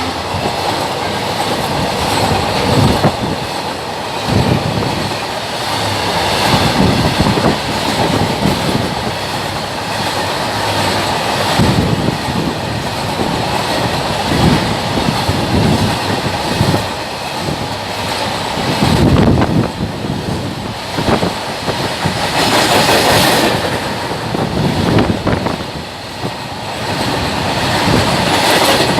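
Freight train rolling past: a rake of BTPN bogie tank wagons behind twin EMD WDG-4D diesel locomotives, wheels clattering over the rail joints in an uneven rhythm.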